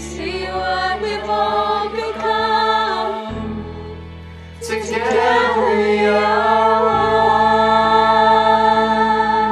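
Mixed young voices singing a song together as a choir over a sustained low accompaniment. The singing dips briefly near the middle, then a new phrase swells into a long held note.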